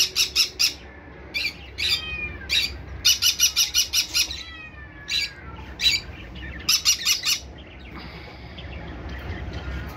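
Conure parrot squawking in quick runs of short repeated calls, mixed with a few falling whistled notes; the calling stops about eight seconds in.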